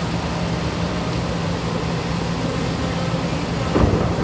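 Heavy rain pouring down in a steady hiss, with a low steady hum beneath it. Thunder breaks in near the end.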